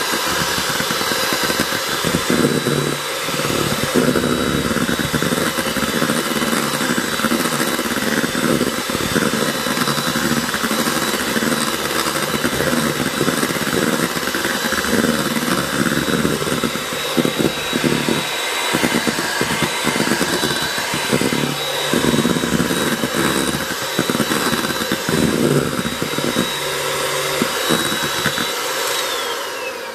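Electric hand mixer running on high, its beaters whipping egg whites in a stainless steel bowl toward stiff peaks for a meringue. A steady high whine over the motor noise, falling in pitch near the end as the mixer is switched off and winds down.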